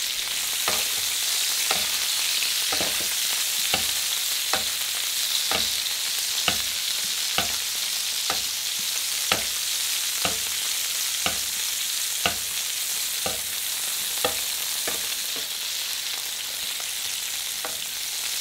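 Veal sweetbreads sizzling in foaming butter in a frying pan as they are basted, with the butter kept at a foam without browning. A light knock, likely the basting spoon against the pan, comes about once a second.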